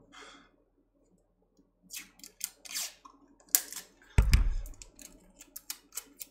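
Small metallic clicks and scrapes as a reballing stencil is set and adjusted on the chip with tweezers, with one dull thump about four seconds in.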